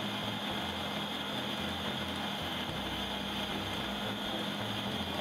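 Food processor running steadily, its blade grinding peanuts that have already turned oily into a paste on the way to peanut butter.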